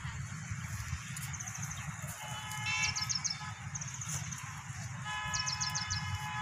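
Outdoor ambience with a steady low rumble. A horn sounds two long, level blasts, the first about a second long and the second about a second and a half. Between and over them, birds chirp in quick high trills.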